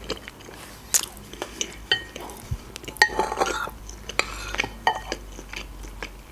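Metal spoon clinking and scraping against a glass bowl while stirring and scooping lentil soup: a string of sharp clinks, a few ringing briefly, with a longer scrape about three seconds in.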